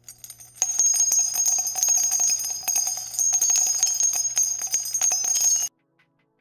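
Bells jingling continuously, a bright ringing full of rapid little clicks, starting about half a second in and cutting off suddenly near the end.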